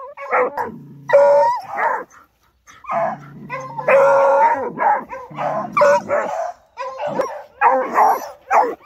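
American foxhounds baying on game in a rapid string of loud, howling calls, some short and some drawn out for about a second.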